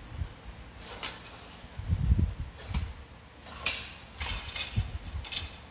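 A carbon fishing rod being handled: a few sharp clicks and light knocks against the rod and its metal reel-seat clamp, with soft low bumps of the hand on the blank.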